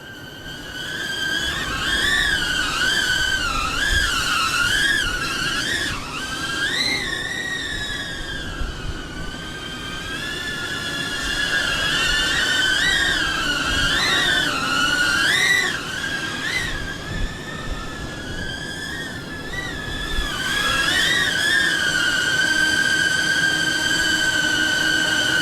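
Xpert Mini Racer quadcopter in flight: its motors and propellers make a high whine that wavers up and down in pitch as the throttle changes, and settles to a steady pitch in the last few seconds. Wind rumbles on the microphone underneath.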